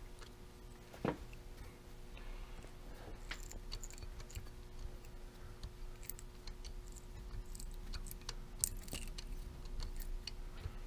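Hand tap being turned into a freshly drilled hole in metal: scattered small clicks and crunches as the tap cuts threads, with one sharper knock about a second in, over a steady hum.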